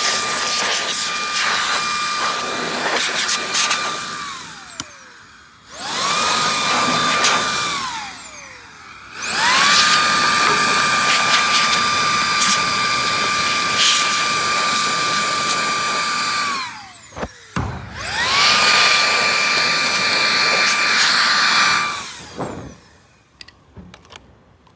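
Small electric motor of a cordless power tool, run in four bursts to clean dirt out of a sliding-gate motor: each burst whines up to a steady high pitch, holds, and winds down. The third run is the longest, and the last stops shortly before the end.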